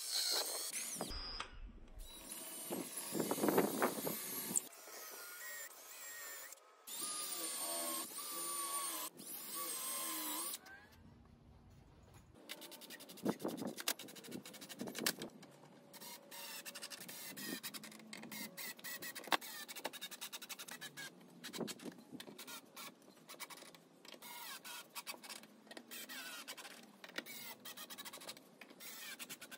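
Cordless drill with a countersink bit running in short bursts of one to four seconds, pre-drilling holes in hardwood steps. After that come scattered clicks and knocks.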